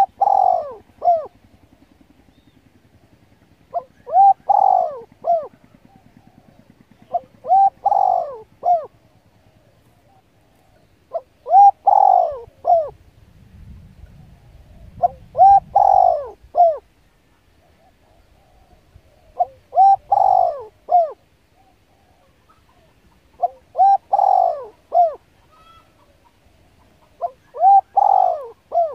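A dove cooing: the same short phrase of a few coos repeated about every four seconds, eight times.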